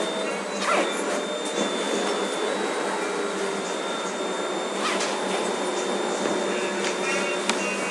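Steady mechanical running noise with faint steady whines and a few light clicks.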